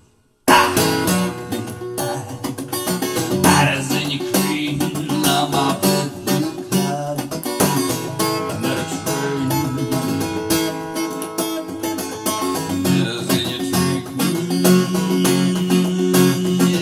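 Background music led by strummed acoustic guitar, starting abruptly about half a second in after a brief silence.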